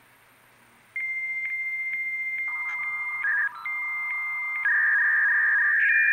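A laptop's internal 56K V.92 dial-up modem handshaking, heard through its speaker. About a second in, a steady high answer tone starts, broken by a click about twice a second; then lower warbling tones join, and a hissing data tone follows near the end as the two modems negotiate the connection.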